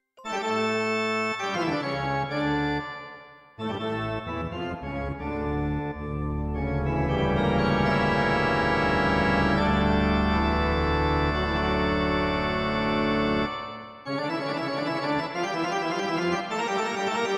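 Yamaha SY22 vector synthesizer playing chords in three phrases. The middle phrase is a long held chord with a deep bass that cuts off sharply about 13 seconds in.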